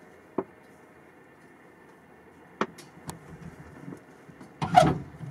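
Inside a parked UAZ's cab, a few sharp clicks and then a short, louder clatter near the end, over a faint steady hum.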